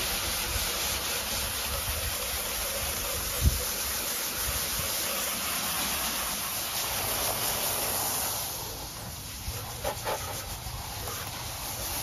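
Garden hose spray nozzle running steadily, water splashing onto an air conditioner condenser coil and into its base to rinse off foaming coil cleaner; the spray gets a little quieter for the last few seconds. A single low thump about three and a half seconds in.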